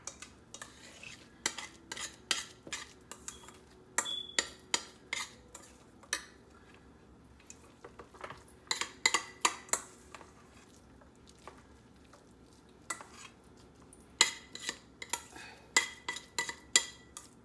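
A spoon scooping cooked rice out of a pot into a bowl, clinking and knocking against the pot in three spells of quick strokes with pauses between, the last with a brief ring.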